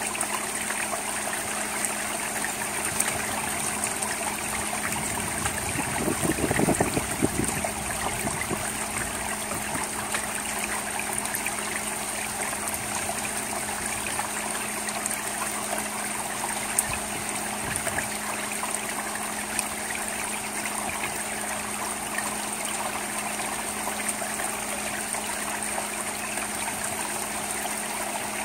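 Steady rain falling on an asphalt-shingle roof and gutter, an even hiss with scattered sharp taps of drops. About six seconds in there is a louder, lower rush lasting a second or so.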